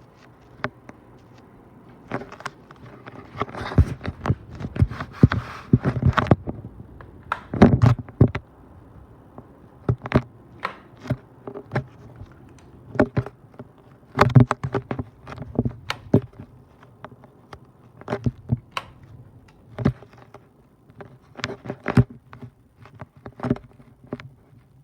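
Ceiling fan motor humming steadily, with many irregular clicks and knocks over it, some sharp and loud, clustered most thickly a few seconds in.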